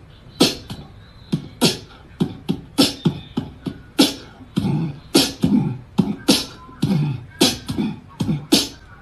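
A cat hissing and spitting in short, sharp bursts, about two a second, with a low growl under some of them.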